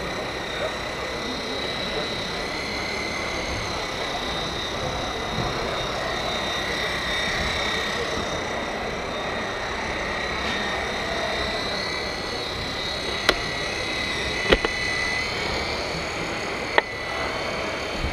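The hydraulic drive of a large radio-controlled Liebherr R 994 shovel excavator model whines steadily as the bucket and boom are moved, with three sharp knocks in the last few seconds.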